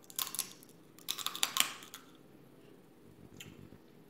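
Crab leg shells cracking and crunching as they are bitten and broken open. There are two bursts of sharp crackling clicks in the first two seconds, then a few fainter clicks near the end. The shells are hard and resist breaking by hand.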